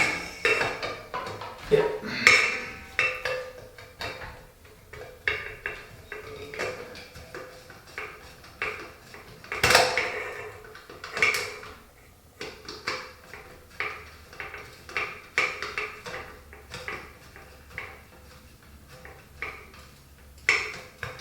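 Irregular metal clicks, taps and clinks from removing the screws from a ceiling fan's metal housing, with a couple of louder knocks about halfway through.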